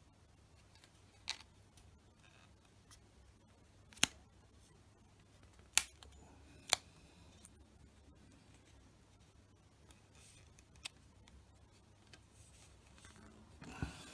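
A handful of sharp, separate clicks and light taps at irregular intervals, the loudest about four to seven seconds in, from hands working vinyl wrap onto a tennis racket frame, with a faint rustle of the vinyl near the end.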